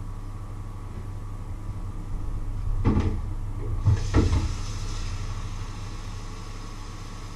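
Two clunks at a kitchen sink, then the tap turned on about four seconds in and water running steadily into the sink, over a steady low hum.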